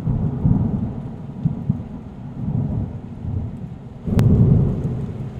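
Thunder rumbling steadily over rain, with a sharp crack about four seconds in followed by a louder rumble.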